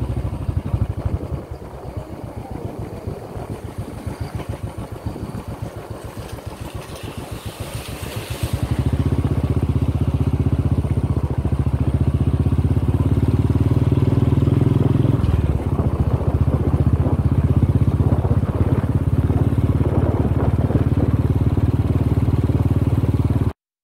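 Single-cylinder motorcycle engine running while riding, with an even pulsing beat. It is fairly quiet at first, then becomes louder and steadier after about eight seconds as the throttle opens, with a brief drop in the sound about fifteen seconds in.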